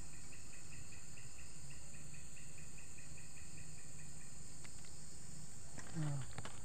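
An insect chirping in a fast, even pulse of about five high chirps a second, which stops about four seconds in. Near the end there is a brief voice sound and a few light clicks.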